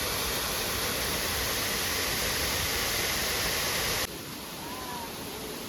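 Steady, even rushing noise that cuts off suddenly about four seconds in. A quieter rushing background follows, with one short faint whistle.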